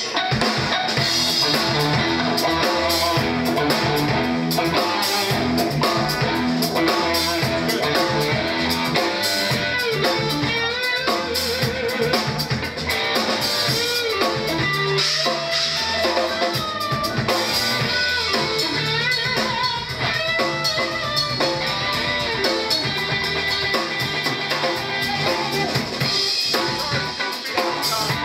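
Live band playing an instrumental stretch of a song on drum kit and guitar during a sound check, without vocals.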